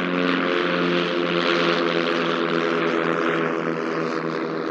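Piston engines and propellers of two Silence Twister light aerobatic planes flying past low. The engine note is steady, with a rushing propeller noise.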